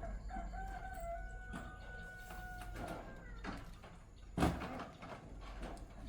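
A rooster crowing: one long, held call. About four seconds in comes a single sharp knock.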